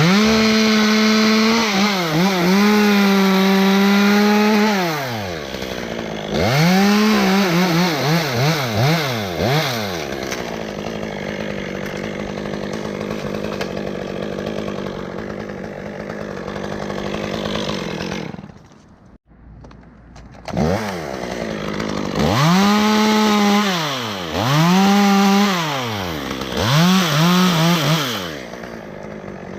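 Gas chainsaw revving to full throttle and cutting through wood in several long bursts, dropping back to idle between cuts. There is a brief break about two-thirds of the way through.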